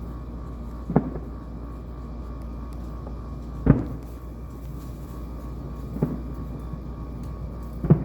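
Four fireworks shells bursting with dull booms about two seconds apart, the second the loudest, over a steady low rumble.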